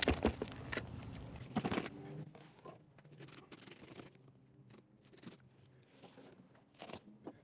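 Serrated fillet knife sawing through a grouper's collar, bone and skin. A fast run of crunching, scraping strokes in the first two seconds, then fainter scattered scrapes.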